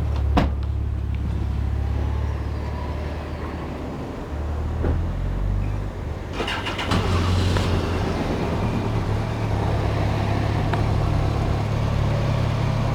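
A vehicle engine idles with a steady low hum. There is a single click just after the start and a short rush of higher noise about six and a half seconds in.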